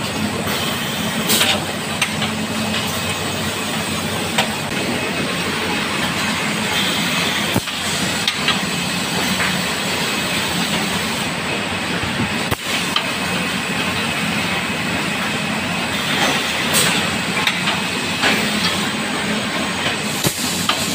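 Automatic water-bottling line running: steady machine noise and hiss, with frequent sharp clicks and clatter from the conveyor and plastic bottles.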